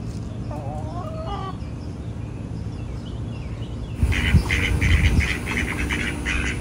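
A backyard hen gives a short wavering call. About four seconds in, the sound switches abruptly to a louder chorus of ducks quacking rapidly, begging for food.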